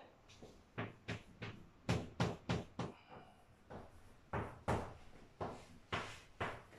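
Chalk tapping and scratching against a blackboard as letters are written: a run of short, sharp taps at an uneven pace, roughly two a second.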